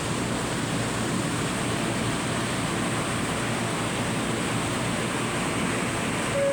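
Steady rushing noise inside an R160 subway car, even and unbroken. Right at the end the first, higher tone of the car's door chime begins.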